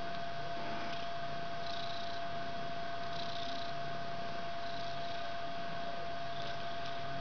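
A kitten purring in repeated low stretches, each about half a second to a second long, over a steady electrical hum.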